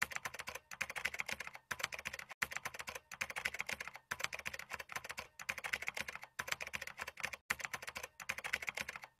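Computer keyboard typing: rapid key clicks in runs of about a second, broken by brief pauses, as a sound effect for text being typed on screen.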